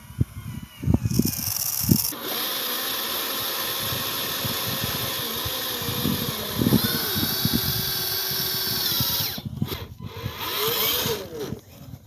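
Whine of a radio-controlled model truck's electric drive motor and gearbox, starting about two seconds in, stepping up in pitch partway through and cutting off near the end, with a short second burst after it. Low knocks and rumbles run underneath.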